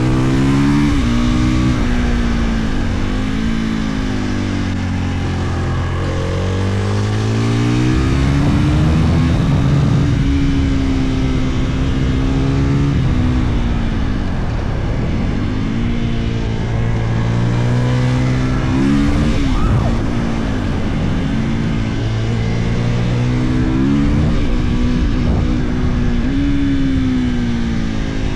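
2022 Husqvarna FE 450's single-cylinder four-stroke engine under way, revving up and dropping back over and over as the bike accelerates, shifts and slows.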